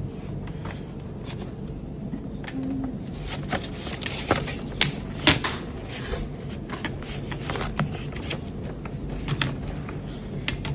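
Scattered clicks and light metal knocks from an 8-iron being handled in a loft and lie machine, the loudest few coming close together a little past the middle, over a faint steady low hum.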